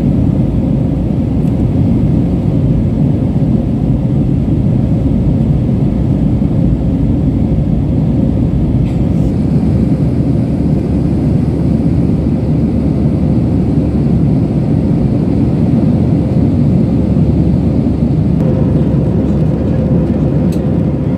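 Steady cabin noise inside a jet airliner in flight: a low rumble of the engines and airflow, heard from a window seat beside the wing. A faint steady hum joins in near the end.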